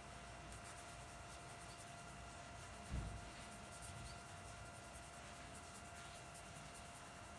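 Faint soft strokes of a dry flat brush blending charcoal on drawing paper, over a steady faint hum. One low thump about three seconds in.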